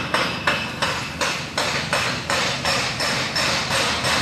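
Steady rhythmic knocking, about three sharp strikes a second.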